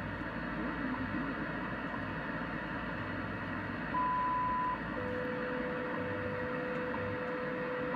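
Shortwave radio receiving the WWV time-signal station on 15 MHz through a small indoor magnetic loop antenna: steady static hiss with the station's faint low time-code pulses. About four seconds in comes a short higher beep, just under a second long, which is WWV's minute-mark tone, and about a second later a lower steady tone starts and holds.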